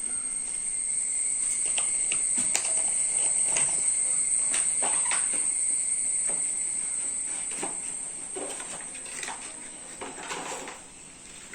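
Steady high-pitched insect chirring, like crickets, with scattered light clicks and taps of computer parts being handled. The sound cuts off abruptly at the end.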